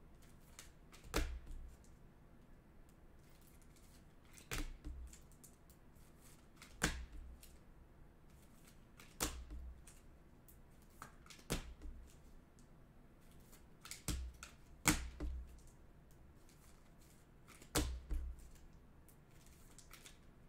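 Sharp clicks and taps every two to three seconds, some doubled, from trading cards being handled and set down on a tabletop.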